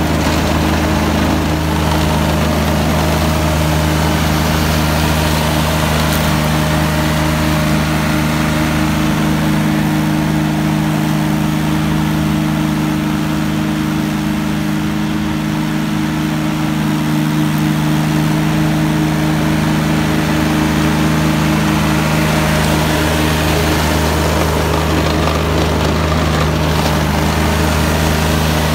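McConnel Robocut tracked embankment flail mower running at a steady drone as it flails rough grass and scrub. It gets a little quieter in the middle as the machine moves away, then louder again near the end as it comes back.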